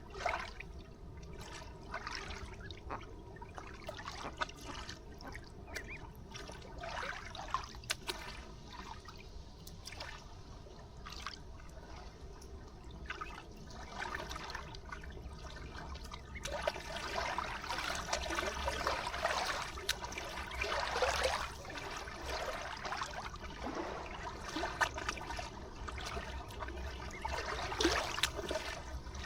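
River water trickling and lapping at the shore, an irregular splashy patter that grows louder and busier about halfway through.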